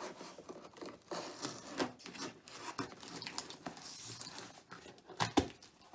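Cardboard packaging being handled and torn open: irregular rubbing, scraping and tearing, with a couple of sharp knocks about five seconds in.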